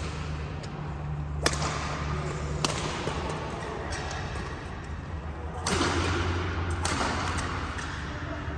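Badminton rally: sharp cracks of rackets striking a shuttlecock, four hits spaced roughly a second or more apart, the one about six seconds in louder than the rest. A steady low hum runs underneath.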